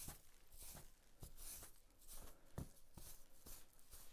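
A stiff plastic brush raked through the fur of a salt-cured black bear hide, faint scratchy strokes at about two a second, with a few soft knocks.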